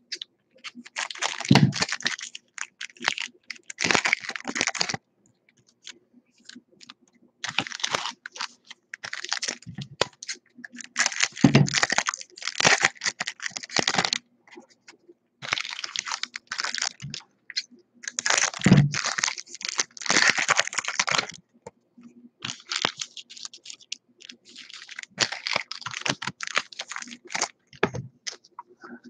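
Foil trading-card pack wrappers and cards being handled: rustling in irregular bursts of a second or two, with short pauses between.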